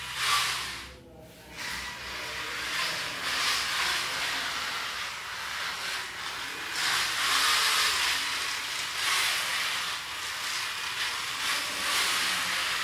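Small DC gear motors of a four-wheel robot car whirring as it drives and turns, a hissing buzz that rises and falls with its speed. The sound drops away briefly about a second in, then carries on.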